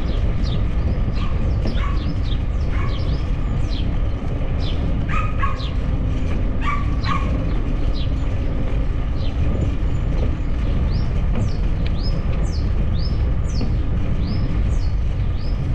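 Many birds chirping in the trees: short, quick chirps throughout, with a run of rising chirps near the end, over the steady low rumble of a bicycle moving along a paved path.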